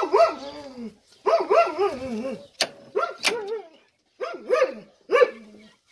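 An animal calling repeatedly in a string of short pitched calls, with two sharp clicks a little past halfway.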